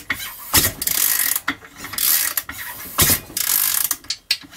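Socket and ratchet turning a Yamaha IT490 490 cc two-stroke single over by hand, against compression with its decompression valve closed. The ratchet rasps in repeated bursts of clicking, with a couple of sharp knocks, at about half a second and three seconds in.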